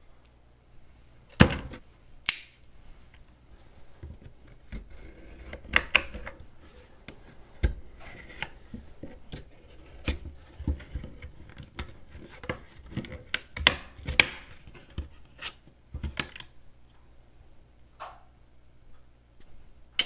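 A knife tip cutting open a rigid clear plastic blister pack on its cardboard backing card: irregular sharp clicks and cracks of the plastic with scraping between them. The loudest snaps come about a second and two seconds in.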